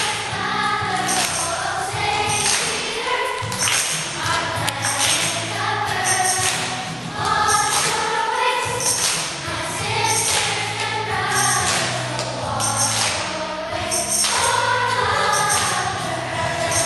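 Background music: voices singing together over a steady beat with jingling percussion.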